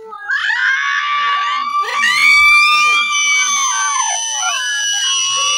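A group of children screaming and shrieking together, many high-pitched voices breaking out at once and held.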